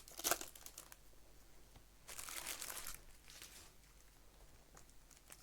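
Faint crinkling and rustling of plastic-foil trading card pack wrappers being handled: a few sharp crackles at the start, a longer rustle about two seconds in, and light crackles after.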